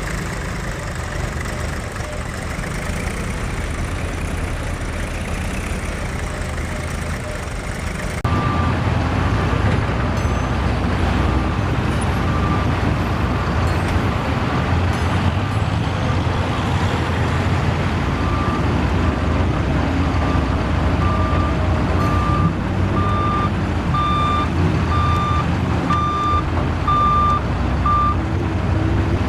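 Heavy machinery's diesel engines running steadily. After a cut about 8 s in the engine is louder and a reversing alarm beeps, on and off at first, then regularly a little faster than once a second near the end, as on a JCB backhoe loader backing up.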